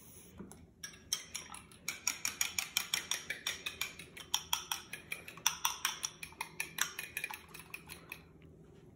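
Egg and water being beaten in a small glass bowl, the utensil clinking rapidly against the glass at about six strokes a second. It starts about a second in and stops a second before the end.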